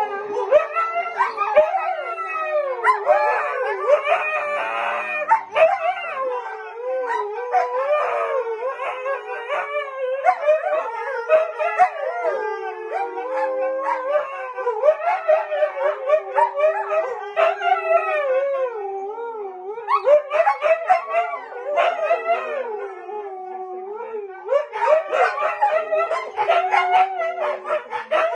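A group of dogs, huskies among them, howling together in a long chorus of overlapping voices whose pitches rise and fall. The howling eases a little about two-thirds of the way through, then swells again near the end.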